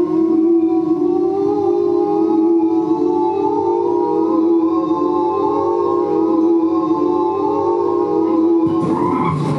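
Live experimental music played loud through the PA: a held pitched drone that wavers slightly, over a low hum, shifting near the end.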